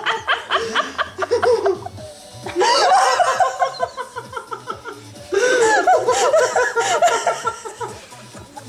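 A group of people laughing in several loud bursts over background music with a steady beat.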